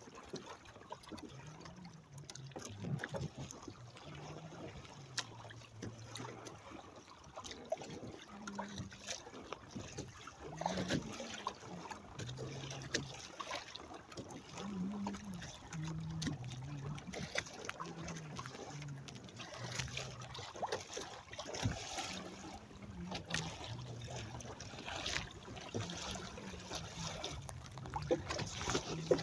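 Water lapping and splashing against the hulls of a Hobie outrigger sailing kayak under way, with scattered small knocks and a low wavering hum underneath.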